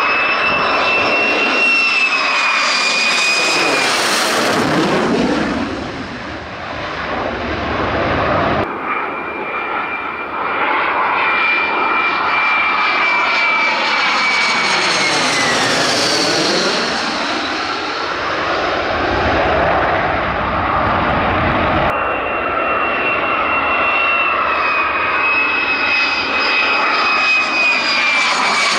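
A US Air Force F-35 Lightning II's single F135 jet engine running loud on a low landing approach: a steady roar with a high whistle that slowly falls in pitch, and a sweeping, swirling tone as the jet comes near. The sound changes abruptly twice, about a third of the way in and again about three quarters through, where one approach cuts to another.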